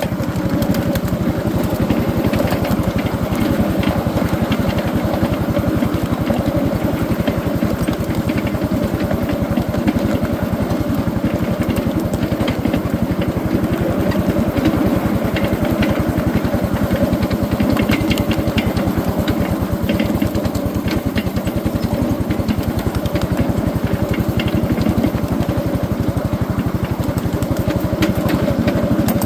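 Engine of a ride-on backyard railroad locomotive running steadily as the train travels along the track, with scattered clicks over it.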